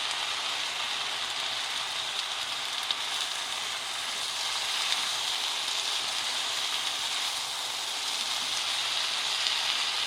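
Yakisoba noodles sizzling steadily in a hot frying pan, just after liquid okonomi sauce has been poured in and while it is worked through.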